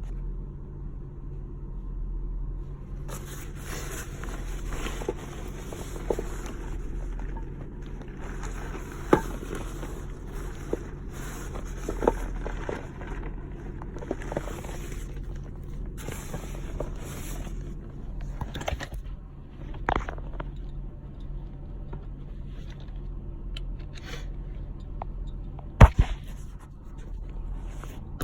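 Rustling and scraping inside a stopped car, with scattered knocks, the loudest two close together near the end, over the steady low hum of the idling engine.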